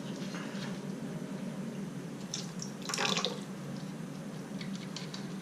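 Water trickling and dripping in a toilet tank during a fill valve repair, with a short, louder splash about three seconds in.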